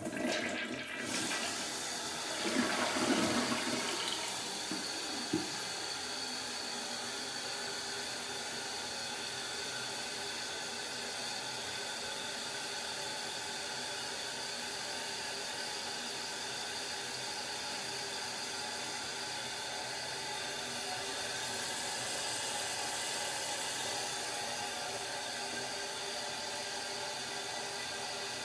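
One-piece toilet flushing normally: a surge of water draining the bowl about two to four seconds in, then a steady hiss of water as the tank refills.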